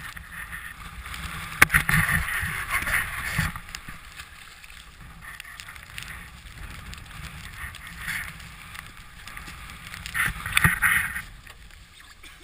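Water splashing and sloshing around a Zodiac inflatable boat's hull as it is pushed off through slushy brash ice. A sharp knock comes about a second and a half in, with louder bursts of splashing near the start and again near the end.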